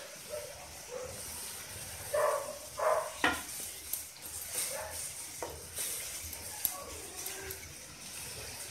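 Thick onion and spice paste sizzling in oil in a non-stick kadai while a wooden spatula stirs and scrapes through it, with a few sharp knocks of the spatula against the pan. A few brief high-pitched calls sound in the background about two to three seconds in.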